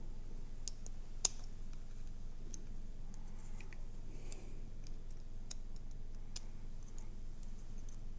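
Scattered small metallic clicks and taps from an Ultion euro cylinder lock being handled while its retaining circlip is worked off, with one sharper click about a second in.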